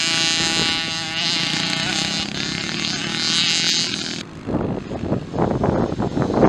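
Youth motocross bike engines racing: a high-pitched engine note that rises and falls as the rider works the throttle. About four seconds in it cuts abruptly to a rougher, noisier engine sound without a clear pitch.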